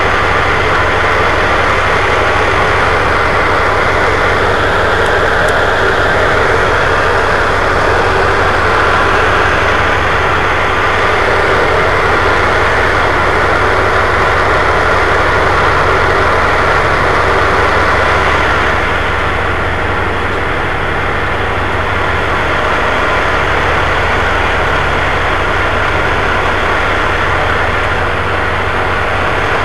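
Tugboat's diesel engine running steadily at low speed, a heavy drone heard from on board. About two-thirds of the way through it turns a little quieter and duller, as the engine is eased back.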